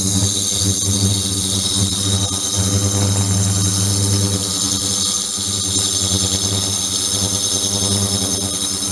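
Ultrasonic cleaning tank with a 72 kHz, 300 W transducer running under water: a steady electrical buzzing hum with a high-pitched hiss and whine above it, unchanging throughout.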